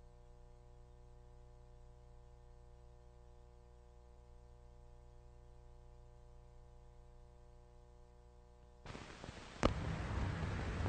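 Faint steady hum of several pure tones, then about nine seconds in the hiss and crackle of an old archival voice recording starts, with one sharp click.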